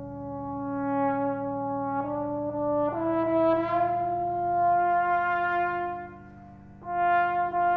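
Trombone playing slow, sustained notes that step upward in pitch and swell louder; it breaks off for a breath about six seconds in and comes back on a new note.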